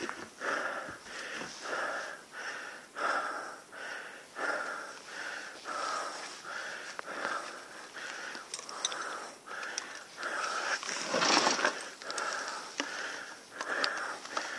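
Heavy, fast breathing of a rider out of breath from wrestling a fallen dirt bike, each breath following the last in a steady rhythm of a little over one a second. About eleven seconds in comes one louder, longer breath.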